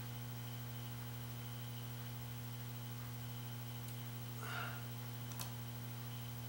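Steady low electrical mains hum, with a brief soft noise and then a faint sharp click about five seconds in, as snap ring pliers work a snap ring down into its groove inside a gearbox housing.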